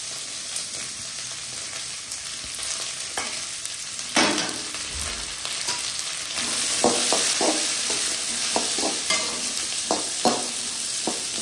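Shallots, curry leaves and green chillies sizzling in hot oil in a kadai as they sauté, stirred with a spatula that scrapes and knocks against the pan. The sizzle gets louder about halfway through, with stirring strokes coming more often after that.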